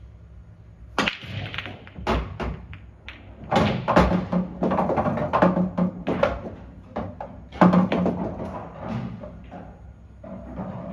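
Break shot on an English pool table. The cue strikes the cue ball about a second in, the racked reds and yellows scatter with sharp clacks, and balls keep knocking against each other and the cushions and drop into pockets with thuds, dying away near the end.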